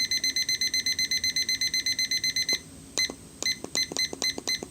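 Digital kitchen timer's alarm sounding a rapid run of high-pitched beeps, about eight a second, that cuts off about two and a half seconds in. It is followed by a few short single beeps with clicks as its buttons are pressed to set it again.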